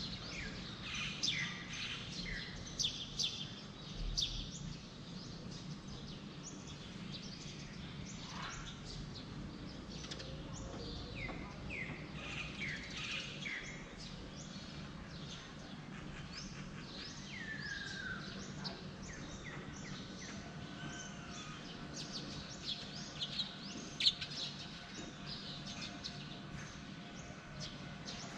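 Several birds chirping and calling, many short calls overlapping throughout, over a steady low background hum.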